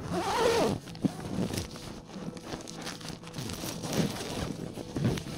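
Nylon bivvy bag and sleeping bag rustling and crinkling as a person moves inside it and works a hand out of the opening. It is loudest in the first second.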